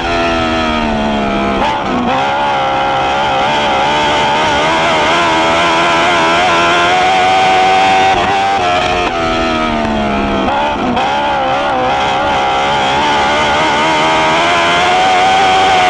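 Dwarf race car's motorcycle engine at racing speed, heard from onboard the car. Its revs drop twice, near the start and again about nine seconds in, then climb back and hold high.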